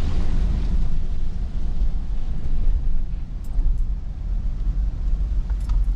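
Strong wind buffeting the microphone: a loud, unsteady low rumble with a few faint ticks.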